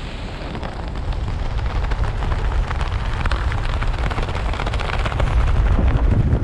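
Rushing freefall wind blasting over the camera microphone, a loud, crackling buffet that grows a little louder near the end.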